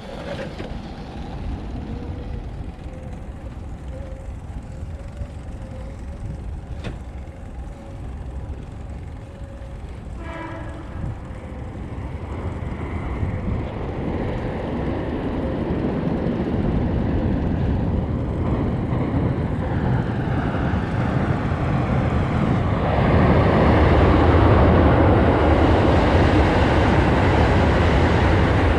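A train approaching and passing, its rumble and rail noise growing steadily louder over the second half and loudest near the end.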